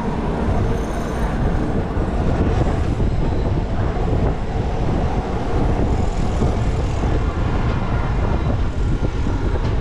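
Passenger train running along the track: a steady, loud rumble and rattle.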